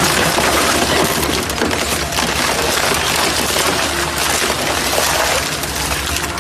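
Double-shaft shredder tearing up a refrigerator: continuous loud cracking and crunching of breaking material over a steady low machine hum.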